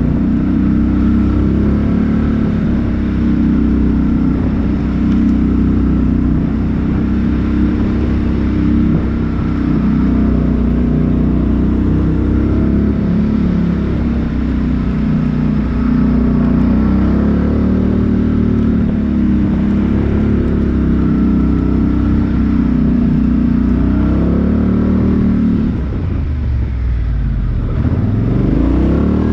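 Four-wheel-drive vehicle's engine running under load, its pitch wavering as the throttle is worked. Near the end the revs drop sharply and climb back.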